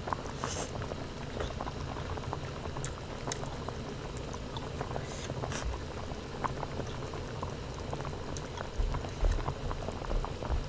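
Hot-pot broth bubbling in a steel pot on a tabletop burner: a steady bubbling with scattered small pops and clicks.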